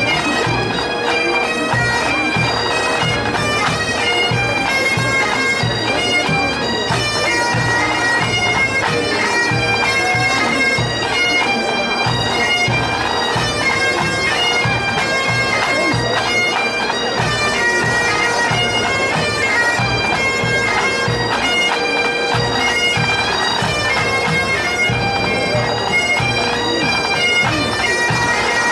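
A pipe band playing: Highland bagpipes sound a tune over their steady drone, with drums beating underneath.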